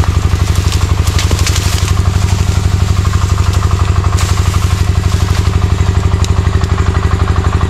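Small petrol engine of a machine running steadily and loud, with a fast even beat, and a few faint clicks and rustles over it.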